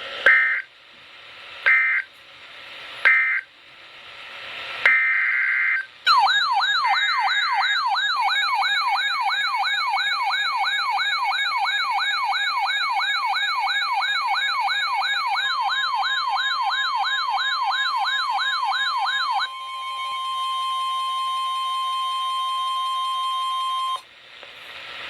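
Emergency alert broadcast tones. First come three short buzzy data bursts, the end-of-message codes, then longer buzzy SAME header bursts. A fast wailing siren follows. Partway through the siren the steady NOAA Weather Radio 1050 Hz warning alarm tone begins, and it holds alone for several seconds before cutting off.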